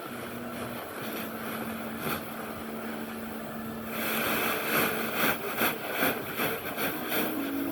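A small engine running steadily with a low hum. About halfway through, louder uneven rustling or wind noise comes in over it.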